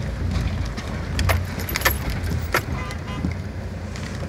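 Off-road 4x4's engine running low and steady, heard from inside the cab, with several sharp knocks and rattles as the vehicle lurches over the rutted track.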